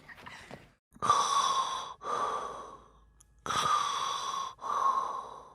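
A person breathing heavily: two slow breath cycles, each a breath in followed by a slightly softer breath out, the second cycle starting about two and a half seconds after the first.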